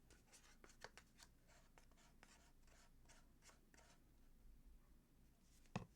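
Faint, irregular scraping strokes of the last of the plaster being scraped out of a cup into a mold, otherwise near silence.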